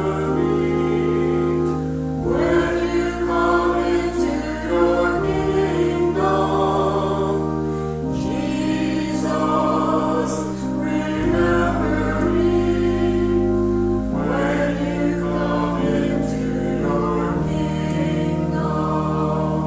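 Choir singing a slow sung prayer in sustained chords that change every two or three seconds, over held low bass notes.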